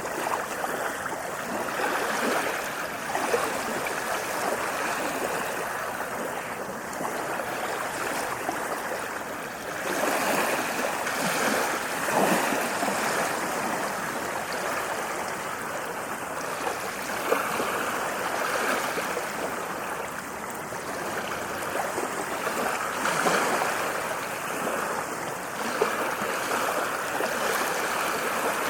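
Ocean waves washing onto a beach: a continuous rush of surf that swells and eases every several seconds as each wave comes in.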